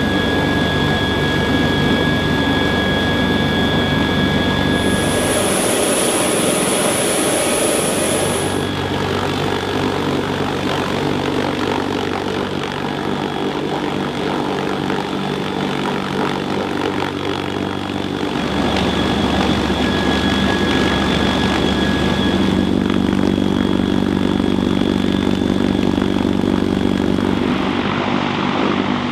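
CH-53K King Stallion heavy-lift helicopter running loud and steady: the whine of its three turboshaft engines over the beat of the rotors. A shrill high whistle rides on top for a few seconds about five seconds in, and the balance of whine and rotor noise changes abruptly several times.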